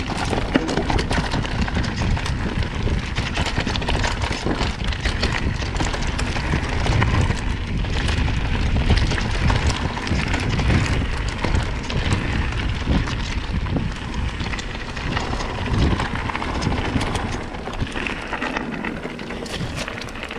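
Mountain bike riding fast down a rough trail: wind buffeting the microphone under a constant crackle of tyres on the trail surface and the bike rattling over bumps. It eases off a little near the end.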